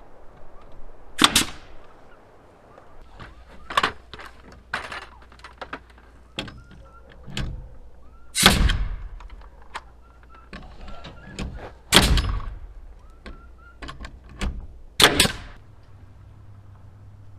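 Carpentry on a wooden frame: about half a dozen sharp knocks on wood a few seconds apart, irregularly spaced, with a few lighter taps between them.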